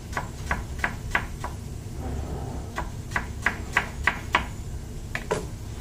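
Kitchen knife slicing a red onion on a plastic cutting board: sharp taps of the blade hitting the board, about three a second, in two runs of five or six strokes with a short pause between, and a last quick pair near the end.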